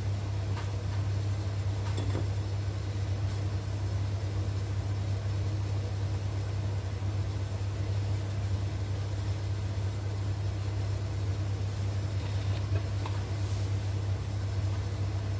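A steady low hum runs throughout, with a few faint light taps from a stainless mesh strainer as flour is sifted through it into a glass bowl.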